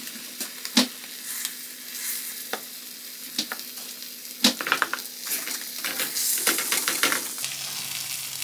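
Eggs and turkey fillet frying in butter in a nonstick pan on a gas stove: a steady sizzle with scattered sharp crackles, coming thicker in the second half.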